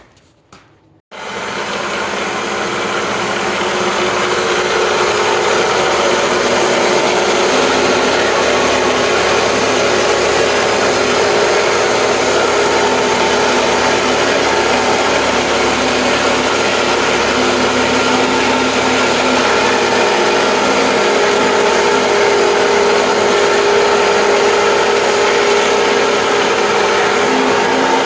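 A small engine-driven saw running steadily under load, ripping a log lengthwise into planks. It starts suddenly about a second in and then holds an even pitch.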